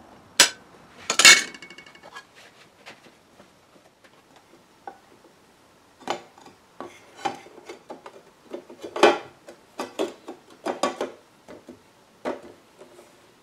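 Thin pane glass clicking against the bench, then clinking with a short ringing tail about a second in. After that come scattered light clicks and taps of glass and small metal pins against a wooden door's mullion frame as the pane is fitted.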